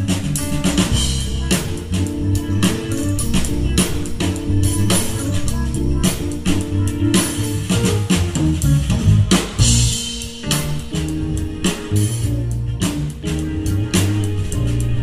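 Live band playing an instrumental funk tune: electric guitar, bass guitar, keyboards and drum kit, with the drums keeping a steady beat.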